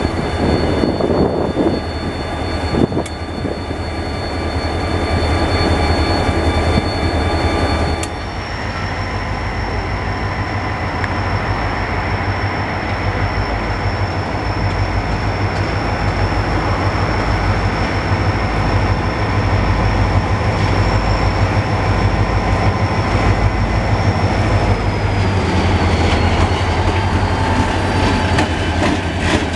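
A consist of diesel-electric locomotives running past close by: a deep engine drone and the rolling noise of wheels on rails, with a steady high whine over it that drops slightly in pitch near the end. There is an abrupt change about eight seconds in, where one passing locomotive gives way to the approaching consist.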